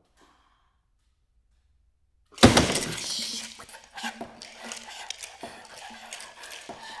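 A sudden loud crash about two and a half seconds in, dying away into a scattered clatter of small clicks and scrapes.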